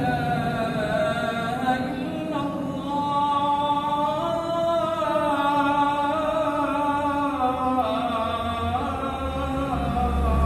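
A man's solo voice singing long, drawn-out notes that slide and turn between pitches, held for a second or more at a time in a chant-like, ornamented style.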